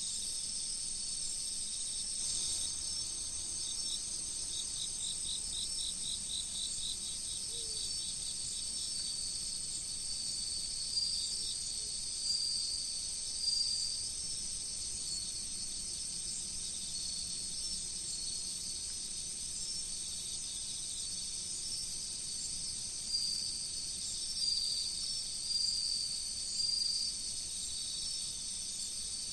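Chorus of autumn crickets and other singing insects: a steady high-pitched ringing with a rapid pulsed trill that fades in and out, and repeated chirping phrases rising over it now and then.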